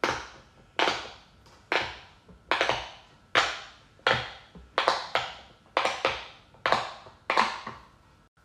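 Rainbow silicone pop-it fidget toy having its bubbles pushed through a row at a time under the fingers. About ten sharp pops, one roughly every three-quarters of a second, each dying away quickly.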